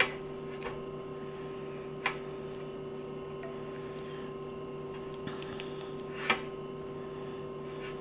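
Silicone basting brush spreading thick sauce over an ear of corn on a wire air-fryer basket, with a few sharp clicks, the loudest about six seconds in, against a steady low hum.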